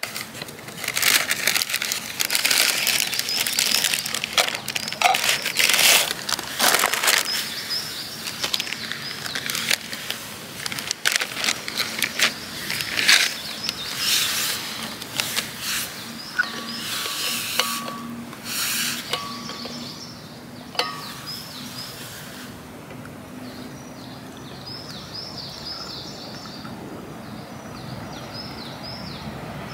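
Footsteps and rustling on a forest path, irregular and loud at first, then quieter about two-thirds of the way in. Small birds call throughout with a repeated high, quick note, most clearly near the end.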